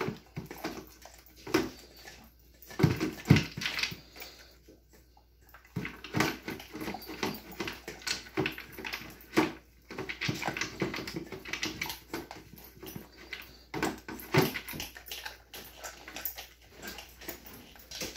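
Dog eating from a slow feeder bowl: irregular clicks and knocks as it works the food out of the bowl and chews, with a short lull about five seconds in.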